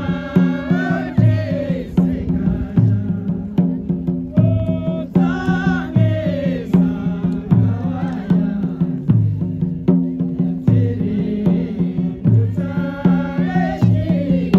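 Ladakhi folk dance music: a wavering melody over a steady drone, kept by a slow, regular drum beat.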